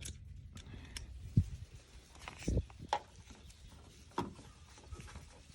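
Scattered clicks and knocks of a tool turning a T30 Torx screw loose in a car door's handle mount, the sharpest knock about one and a half seconds in.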